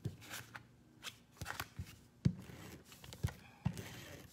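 Cardstock pieces being slid and pressed down by hand on a tabletop: light paper rustling with several short taps and knocks, the strongest about halfway and three quarters through.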